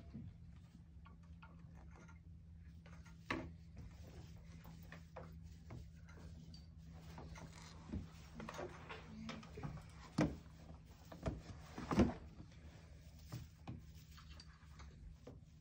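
Small objects being handled on a table: scattered light knocks and rustles, a sharp one about three seconds in and a run of louder knocks between about eight and twelve seconds in, over a steady low room hum.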